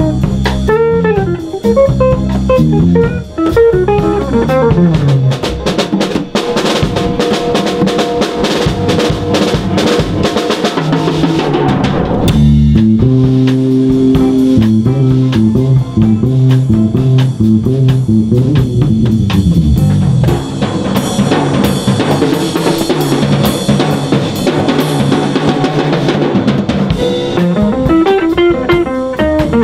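Live jazz band playing: a drum kit with snare and cymbal strokes, busiest in the first half, and a hollow-body electric guitar, whose stepping notes come forward from about halfway through.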